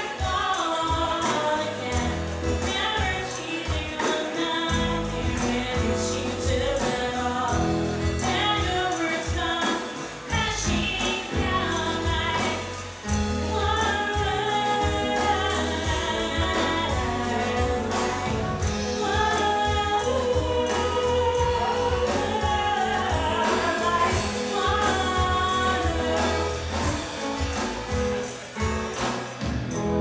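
A live band playing a song: a woman singing lead while strumming an acoustic guitar, with electric guitar, drums and tambourine behind her.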